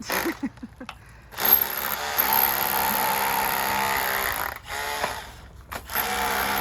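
A power tool runs steadily for about three seconds, stops for about a second, then starts up again.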